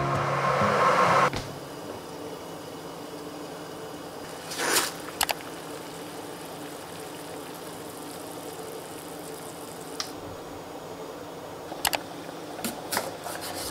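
Water boiling in a pot on a gas stove: a steady bubbling hiss. It is broken by a brief louder rustle about five seconds in and, near the end, a few knife knocks on a wooden cutting board.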